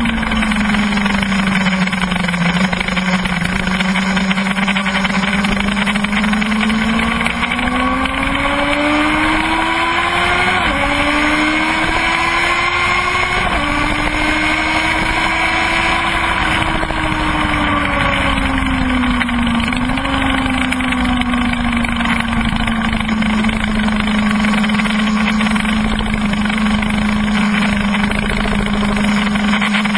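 Kawasaki ZX-12R's inline-four engine under way on track, with heavy wind rush on the microphone. The revs climb, two quick upshifts cut in about eleven and about thirteen and a half seconds in, then the revs fall away and settle to a steady note near the end.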